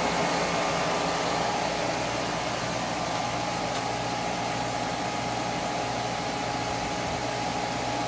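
Rheem RANL049JAZ 4-ton, 13 SEER air-conditioning condensing unit running steadily: an even rush of air over a steady low hum. Nice and quiet, freshly charged with R-410A at 10 degrees subcooling.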